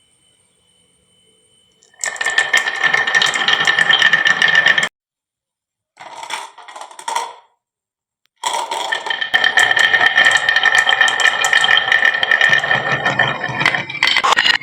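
Many marbles rolling and clattering down a HABA wooden marble-run slope, a dense rattling. It starts about two seconds in, stops abruptly around five seconds, returns briefly, then comes back loud from about eight and a half seconds on.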